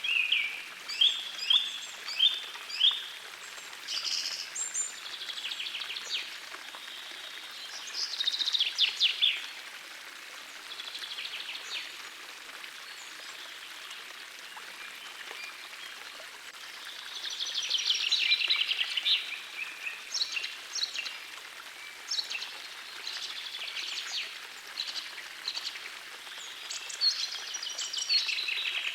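Songbirds singing in short phrases of rapid high notes, over the steady rush of a forest stream. The song is thinner for a few seconds around the middle, then picks up again.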